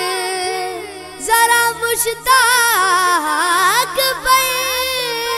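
A boy's solo voice sings a naat, drawing out long wavering notes that glide up and down without clear words. A low steady hum sits underneath.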